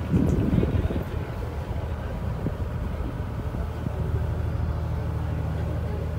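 Engine of the tour boat underway, a steady low drone that grows a little stronger about four seconds in.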